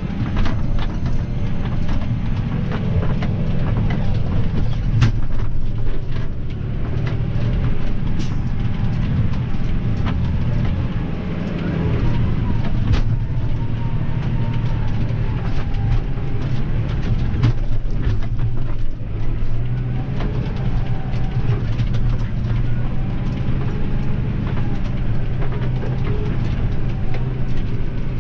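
Valtra T182 tractor's six-cylinder diesel engine running steadily under way, heard from inside the cab, with scattered rattles and knocks as the tractor drives over rough field ground.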